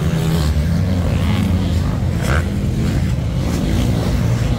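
Several motocross bikes' engines running and revving together as they race across a sand track, the pitch rising and falling a little with the throttle.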